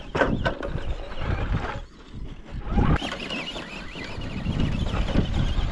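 Wind buffeting an action camera's microphone with a heavy, uneven rumble, over the wavering high whine of an electric RC truck driving on dirt. A few sharp knocks come right at the start, and the whine returns clearly from about halfway on.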